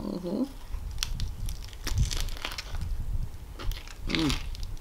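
Crisp lettuce leaves crunching and crackling as a lettuce-wrapped sausage is bitten into and chewed, in many short, irregular crunches.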